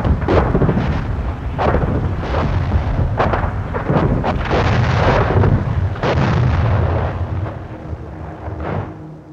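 A bombardment barrage of explosions: sudden blasts one after another, about a second apart, over a continuous low rumble, fading away near the end.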